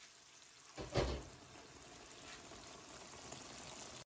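Chicken karahi simmering in oily gravy in a wok, a faint steady sizzle. There is a brief dull thump about a second in.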